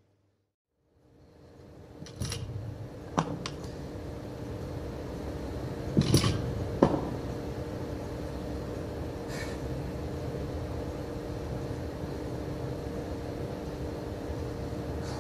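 Steady room hum with two faint steady tones, broken by a few sharp knocks and clicks in the first half, the loudest around six to seven seconds in.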